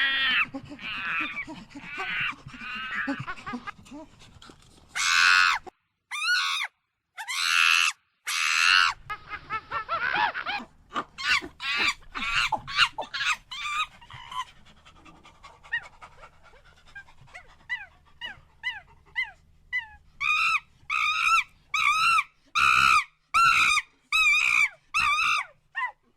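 Monkeys calling: shrill screeches and chattering, then softer short squeaks. Near the end comes an even run of repeated calls, about two a second. The sound cuts off abruptly twice early on, with short silences between spliced recordings.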